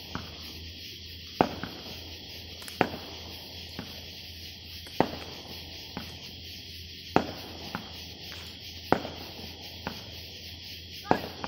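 Crickets chirring steadily, with a sharp pop every one to two seconds.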